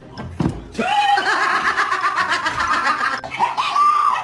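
Laughter in quick repeated bursts, starting about a second in.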